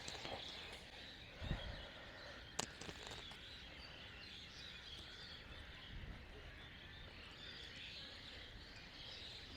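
Faint background of many birds chirping, with a single sharp click about two and a half seconds in.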